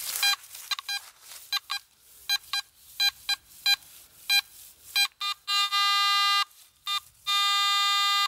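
Metal detector target tones: short, irregular beeps as the coil sweeps back and forth, then two long steady tones of about a second each. The signal jumps and sounds scratchy, and the detectorist guesses tinfoil or a very dirty, corroded coin.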